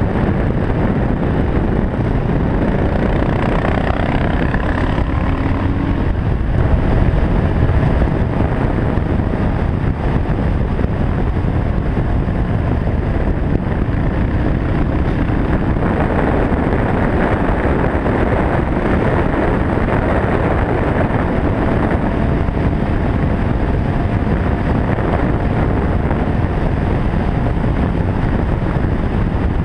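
Cagiva W16's single-cylinder four-stroke engine running at steady road speed, under heavy wind rush on the microphone.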